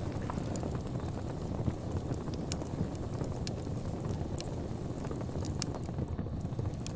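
Wood fire burning in a fireplace: a steady low rumble of the flames with irregular sharp crackles and pops of the burning logs.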